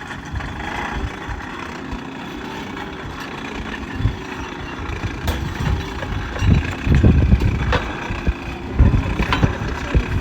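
Forge blower fan running with a steady hum, blowing air into the forge fire to reheat the steel, with low rumbling that swells and fades in the second half and a few sharp clicks.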